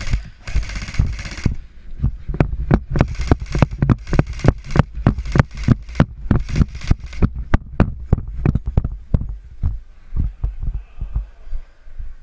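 Running footsteps on hard ground, thudding through the worn camera at about four steps a second, thinning out and fading near the end. A dense rattling noise fills the first second and a half.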